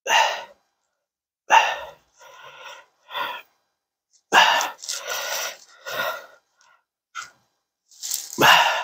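A man's heavy, breathy exhales, about eight in a row with short pauses between, close to a clip-on microphone, as he strains bent over his work.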